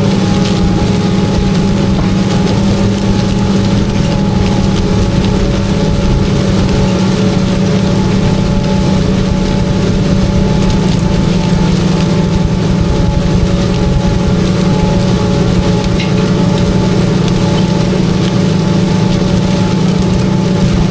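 Tractor engine running steadily under load while pulling an in-line ripper through the ground: an even drone that holds one pitch throughout, over a constant rushing noise.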